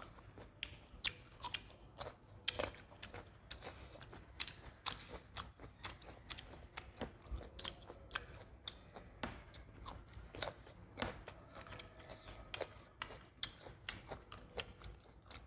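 Close-miked chewing and biting of fresh mango slices, heard as many short mouth clicks and smacks at irregular intervals.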